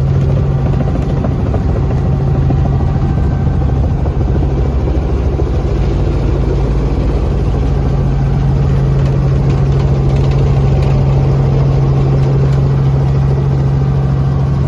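Helicopter engine and rotor running steadily, heard from inside the cabin: a constant low drone with a strong steady hum.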